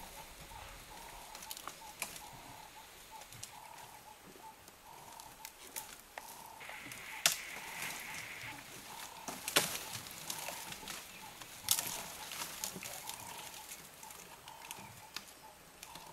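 Elephant bulls feeding on a black thorn tree: scattered sharp snaps and cracks of branches breaking, three louder ones about two seconds apart in the middle.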